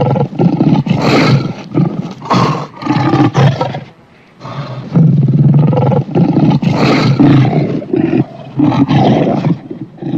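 Animated-film monster roar sound effect: two long, loud, rough roars made of repeated surges, with a brief drop in between about four seconds in.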